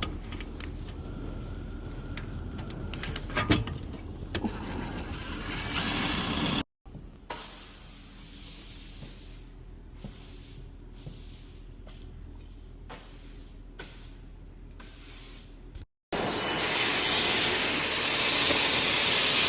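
QuietCool Trident Pro whole house fan running, a steady rush of air with a low hum, heard in three short pieces separated by abrupt cuts; the last piece, near the end, is the loudest.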